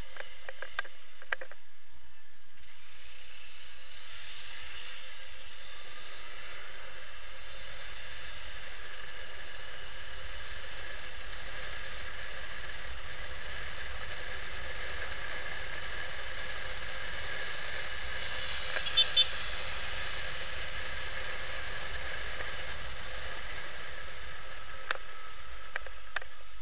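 Steady running noise of a motorcycle ride heard from a camera mounted on the bike: engine, road and wind blend into an even hiss that fills out about two seconds in, with a pair of brief sharp clicks about two-thirds of the way through.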